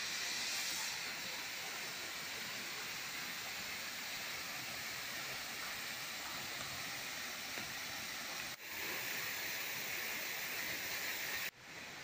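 Steady rushing hiss of a twin-stream waterfall pouring down a rock face. The sound breaks off briefly about two-thirds of the way through and again near the end, and between those breaks the hiss is brighter.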